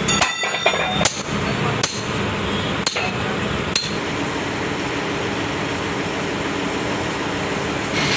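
Hammer striking steel while bullet teeth are changed on a Bauer trench cutter's cutting wheel: five sharp metallic blows about a second apart, the first ringing, then a steady machinery noise.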